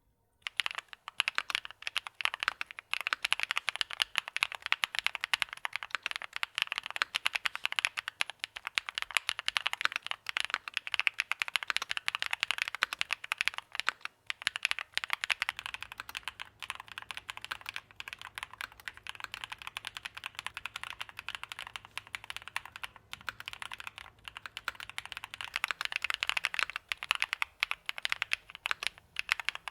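Continuous fast typing on a gasket-mounted Haven TKL mechanical keyboard with an FR4 plate, Camping Life switches and Masterpiece keycaps: a dense stream of key clacks starting about half a second in.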